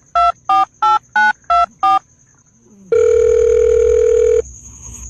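Touch-tone telephone keypad dialling: a quick run of short two-tone beeps, about three a second, ending about two seconds in. After a short pause comes one steady beep lasting about a second and a half.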